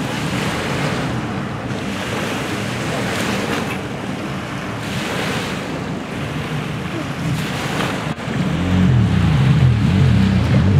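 Jet ski engines running slowly under wind on the microphone and lapping water. About eight seconds in, one jet ski's engine revs up sharply as it accelerates, its pitch rising and falling.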